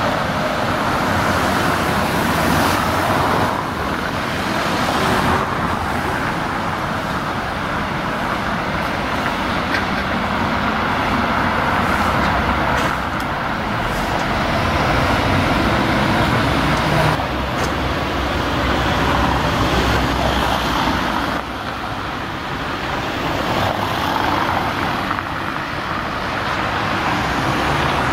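City street traffic: cars driving past close by on a street shared with tram tracks, a steady rush of road noise that changes abruptly several times where the recording cuts.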